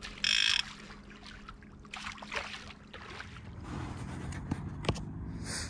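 Fishing boat on the water: a steady low hum that grows a little stronger about halfway through, with faint clicks. A short, sharp high-pitched sound comes near the start and a fainter one near the end.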